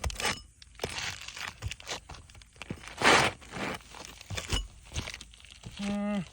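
Crunching, tearing and scraping of roofing shingles being pried and worked loose, with scattered clicks and a loud rasp about three seconds in. Near the end comes a short hummed voice sound that drops in pitch.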